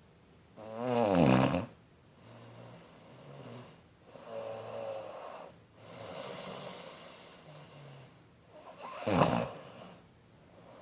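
Snoring: two loud snores about eight seconds apart, with softer breaths in between.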